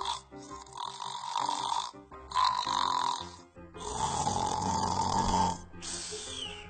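Snore-like rasping sounds, four in a row, each lasting about a second with short pauses between, the third the longest; background music plays underneath.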